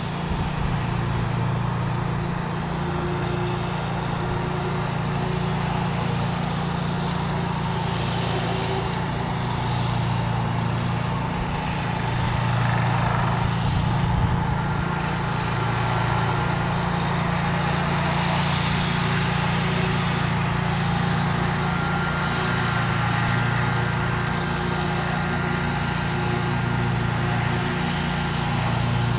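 Commercial-grade lawn mower engine running steadily with a constant low drone.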